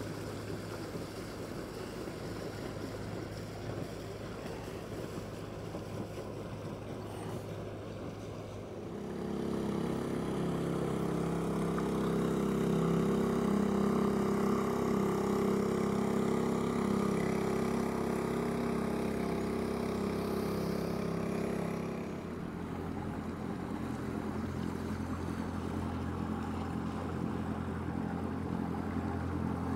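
Motorboat engines running on the river: a steady low hum, joined by a louder engine note from about nine seconds in that drops away again at about twenty-two seconds.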